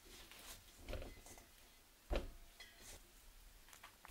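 Plastic dough scraper cutting and pressing scone dough in a stainless steel bowl: soft scrapes and a few light knocks against the bowl, the firmest knock about two seconds in.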